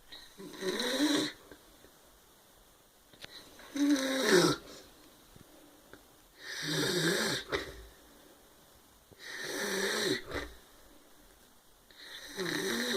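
A man snoring in his sleep: five snores, one about every three seconds, each lasting about a second with a wavering pitch, and quiet gaps between them.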